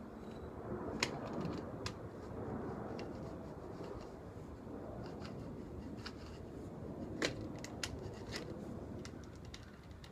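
Scattered sharp clicks and scrapes from handling wire mesh screening and pressing rubber spline into a porch frame's channel, over a steady low hiss. The sharpest click comes about seven seconds in.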